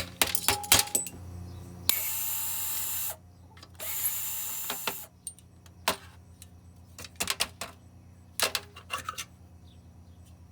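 Metal clinks of a wrench on a small lawnmower engine's muffler bolts, with two bursts of rapid ratchet-wrench clicking about a second long each as the bolts are spun loose. Scattered clanks of the tool and loosened metal parts follow.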